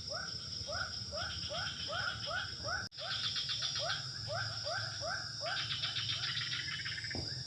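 Night chorus of insects by a swamp: a steady high-pitched drone with a pulsing trill over it, and an animal call repeating a short rising note about three to four times a second. The sound cuts out for an instant about three seconds in.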